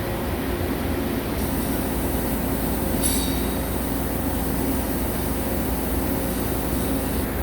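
Heavy CNC machine tool cutting a ductile cast iron (GCD500) tire mold segment, a steady running drone with low rumble and a few held hum tones. A brief high-pitched squeal comes in about three seconds in.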